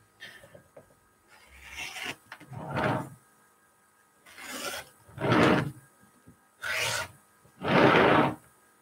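Rotary cutter blade rolling through pieced quilting fabric against a ruler on a round cutting mat: a series of short cuts, each under a second, the loudest ones in the second half.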